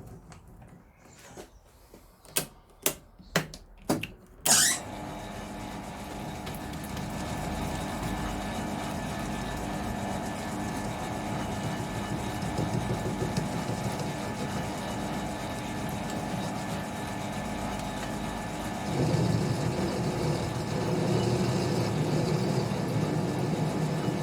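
A few sharp clicks, then a small machine tool's electric motor switches on about four and a half seconds in and runs steadily with a constant hum. About two-thirds of the way through the sound grows louder and rougher.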